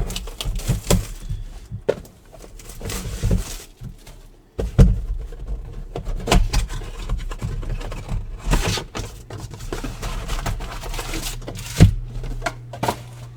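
Trading card packs being torn open: plastic wrappers crinkling and rustling, with cards and cardboard handled and a few sharp knocks.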